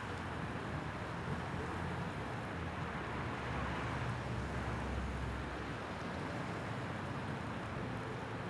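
Steady rushing of water flowing from a broken water main into the street, with a low rumble underneath.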